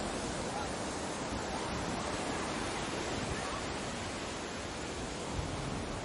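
Steady, even rush of ocean surf, waves washing without any distinct breaks or other sounds.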